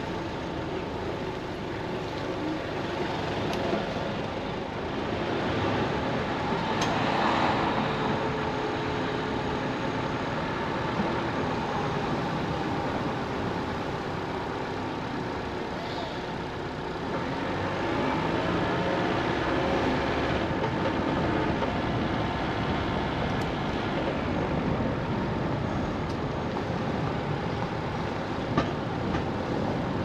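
Steady outdoor street ambience with vehicle traffic noise running through it.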